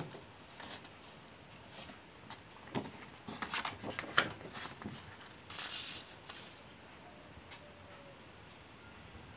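Quiet room tone with a few scattered light clicks and a brief rustle in the middle, and a thin steady high-pitched whine that comes in about three seconds in.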